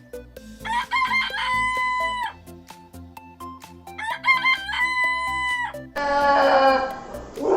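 Rooster crowing twice: each crow starts with a few quick broken notes and ends on a long held note. Near the end a different, lower animal call begins.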